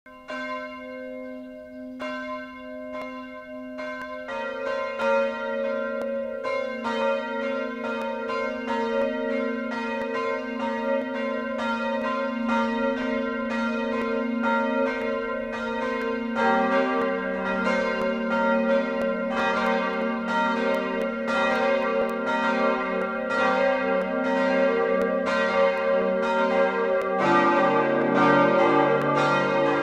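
Church bells ringing, a single bell at first, with further, lower-pitched bells joining about four seconds in, again about halfway through and again near the end, the peal growing louder as each bell comes in.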